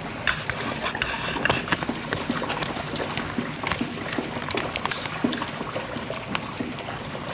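Oxyhydrogen (HHO) gas from a 354-plate electrolysis generator, with all its cells switched on, bubbling hard out of its output hose into water: a steady fizzing with many small pops. A few knocks of handling come through as the camera is set on a tripod.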